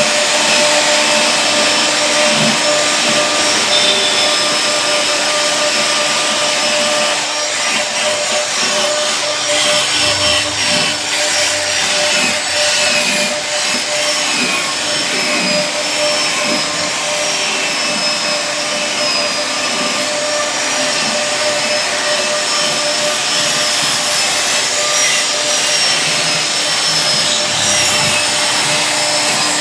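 CNC router running while it cuts wood: the spindle's steady high whine over a constant rushing noise, with an uneven low rumble from the bit working through the wood.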